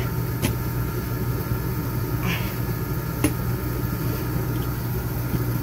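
A steady low hum, with two faint sharp metal clicks from a coilover shock and spring being worked in a spring compressor.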